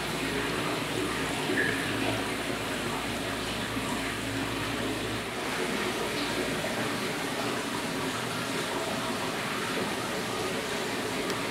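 Water from aquarium return pipes falling and splashing into the tanks, a steady trickling rush of many streams together.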